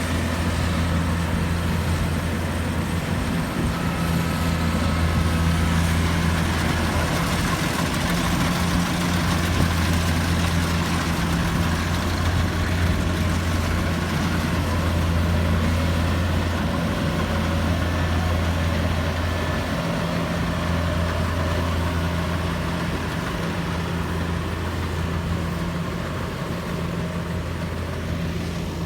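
A rice combine harvester's engine and threshing machinery running steadily under load, a deep hum with a wide mechanical rush over it.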